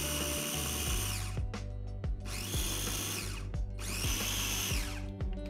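Small electric food processor pulsed in short bursts of about a second, twice, its motor whine rising and falling with each, blending a thick avocado sauce.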